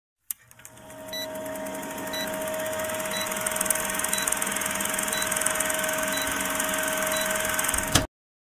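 Old-film countdown sound effect: a film projector running with crackle, hiss and a steady hum, with a short high blip once a second as the numbers count down. It cuts off suddenly with a click about 8 seconds in.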